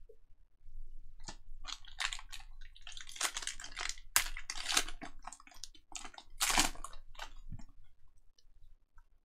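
Foil wrapper of a Panini Donruss basketball hobby pack crinkling and tearing open by hand: a run of crackling rustles, with the loudest rips about four and six and a half seconds in.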